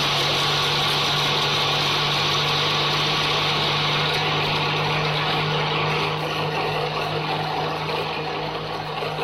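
Ikon electric mixer grinder running at speed, its steel jar blending mango pieces, ice cubes, sugar and milk into a milkshake: a steady motor hum with a dense whirring noise over it, the level wavering a little in the last few seconds.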